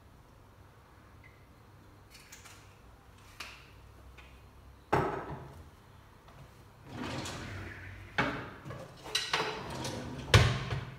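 Kitchen drawer being pulled open and pushed shut, a run of sliding and knocking with utensils rattling; the loudest bang is near the end.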